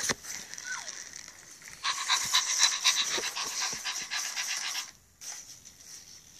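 Zoomer robot dog playing a recorded dog-panting sound through its small speaker: a quick, even run of pants lasting about three seconds, starting about two seconds in.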